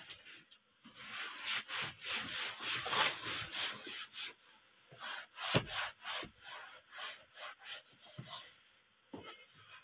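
Cloth rubbed back and forth over a car dashboard: fast continuous scrubbing from about a second in, then slower separate wiping strokes, with one dull knock about halfway through.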